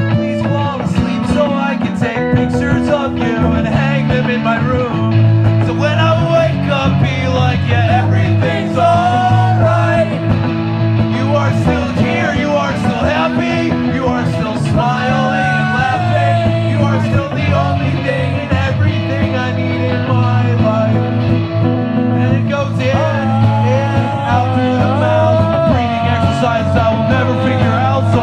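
Rock music with electric guitar, bass and drums, and a voice singing over it.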